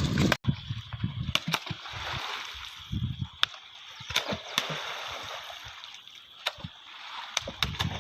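Water sloshing and gurgling in uneven surges, with scattered sharp clicks.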